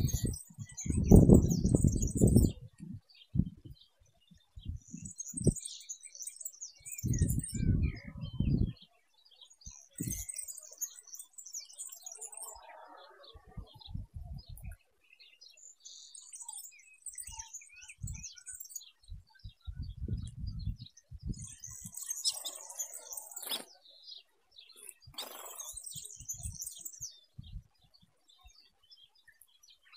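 Small aviary birds chirping and twittering in short high-pitched bursts every few seconds, along with several bursts of low rumbling noise, the loudest about a second in.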